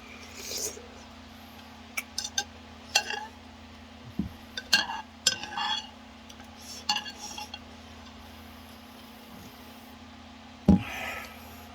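Eating utensils clinking and knocking against a bowl of ramen in scattered short strikes, with one heavier knock near the end.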